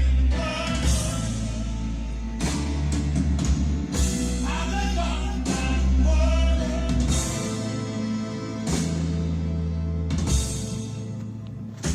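Rock song with a singer, drums and strong bass, played from a vinyl record on a Victor QL-A7 turntable.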